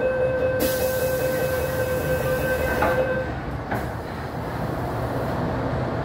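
Interior running sound of a Metro-Cammell M-Train electric multiple unit: a steady rumble with a steady high tone that stops about three seconds in. A hiss of air starts about a second in and cuts off with a knock nearly four seconds in.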